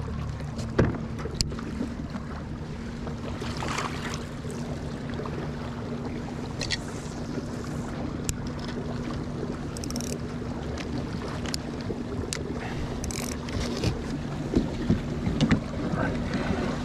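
A fishing kayak under way: a steady, even hum from its drive with water washing along the hull, and a few scattered light clicks and knocks.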